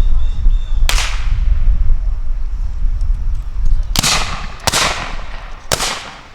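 Black-powder muskets firing: one shot about a second in, then three more in quick succession near the end, each with a short fading tail.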